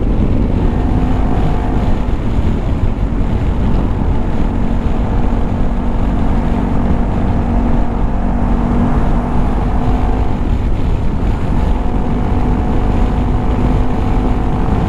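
Honda ADV350 scooter's single-cylinder engine running steadily at highway cruising speed, heard under a steady rush of wind and road noise.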